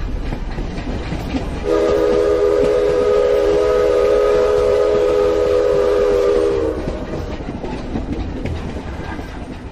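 Train sound effect: a train rolling along, with one long whistle blast sounding as a chord from just under 2 s in until nearly 7 s. The rolling then fades away near the end.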